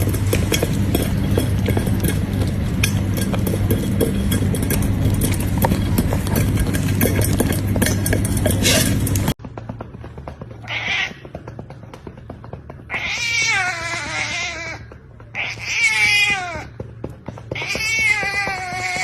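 A loud, dense din with a steady low hum for about the first nine seconds, cutting off suddenly. Then a cat meows four times, mostly long, drawn-out meows that fall in pitch, the last still going at the end.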